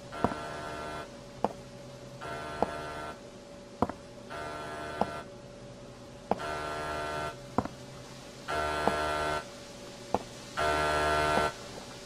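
A buzzing electronic ring sounds for about a second roughly every two seconds, each ring louder than the one before. Between the rings, single sharp clicks fall about every 1.2 seconds.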